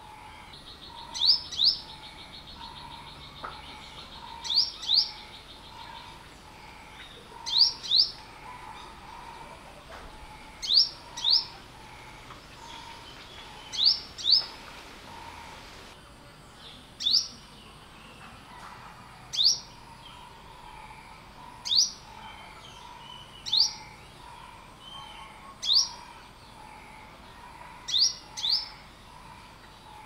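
Olive-backed sunbird (yellow-bellied sunbird) calling: sharp, high, rising chirps, given singly or in quick pairs about every two to three seconds.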